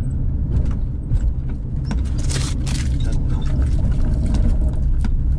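Car being driven, heard from inside the cabin: a steady low rumble of road and engine noise, with a brief hiss a little over two seconds in.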